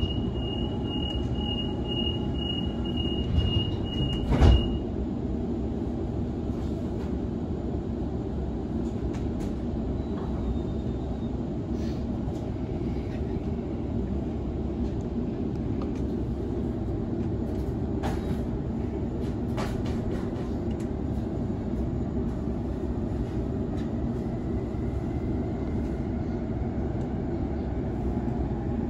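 Sydney Trains Waratah B-set carriage: the door warning tone beeps rapidly for about the first five seconds and ends with a heavy thump of the sliding doors. After that comes the carriage's steady low rumble and hum, with a few faint clicks.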